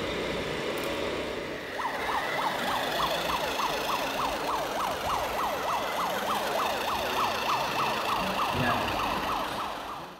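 Electronic police siren from a radio-controlled S.W.A.T. police van's sound module. It starts about two seconds in and repeats as quick falling whoops, about four a second, over the murmur of a large hall.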